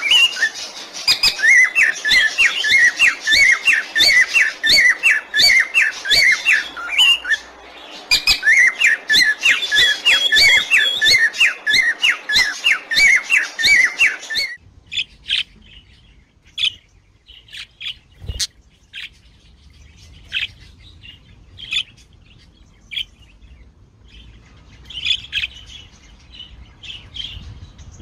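Parrots chirping: a fast, steady run of repeated chirps, several a second, with a brief lull about a quarter of the way in. About halfway through it switches abruptly to quieter, scattered chirps a second or more apart.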